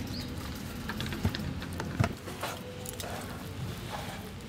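Two sharp knocks, about a second and two seconds in, from cooked food and utensils being handled on a steel plate, over a steady low rumble.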